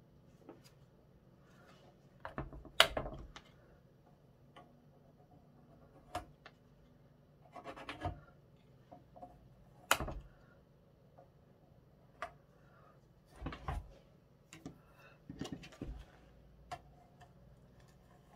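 Car body filler being worked onto a painted clock dial with a small plastic card: scattered short scrapes and rubs, with a few sharp clicks and taps, the loudest about 3 and 10 seconds in.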